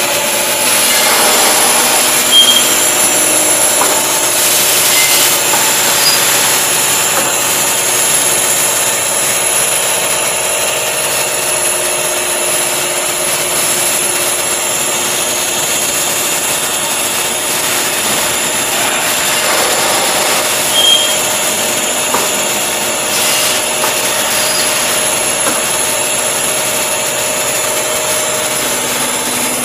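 Paper pulp egg tray production line running: a loud, steady machine hiss and hum with a few steady tones. Two brief louder knocks stand out, one a couple of seconds in and one about two-thirds of the way through.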